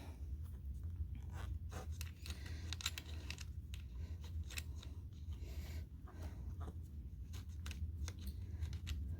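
Hands working a power wheelchair's cable connector and its rubber dust cover: irregular small clicks and rustles as the locking ring is twisted and the cover pushed into place, over a steady low hum.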